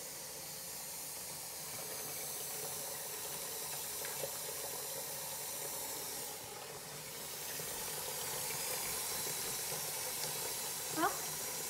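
Kitchen faucet running steadily into a stainless-steel sink, the stream splashing into a white basin as it fills. A brief rising voice-like sound near the end.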